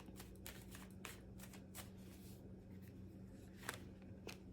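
Tarot cards being shuffled by hand: soft, irregular flicks and riffles of the deck, some in quick little clusters. A faint steady hum runs underneath.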